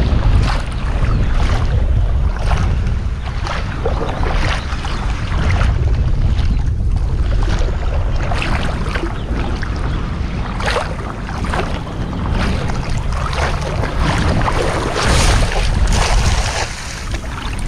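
Wind buffeting the microphone in uneven gusts, over the wash of sea surf.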